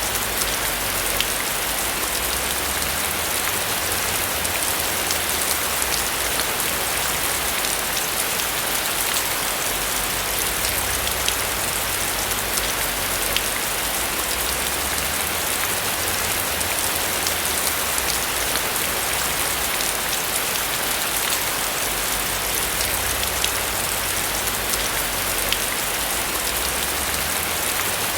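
Steady rain falling on a roof, a dense even hiss with many sharp drop taps and a low rumble underneath.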